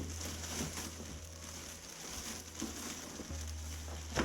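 Packaging and parts being handled while unboxing a welding helmet system: light rustling of plastic and cardboard with a few soft knocks, the loudest near the end, over a steady low hum.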